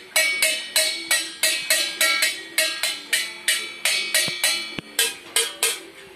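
A toddler drumming on upturned metal pots and lids with a thin stick: a steady run of sharp, ringing clangs, about three a second.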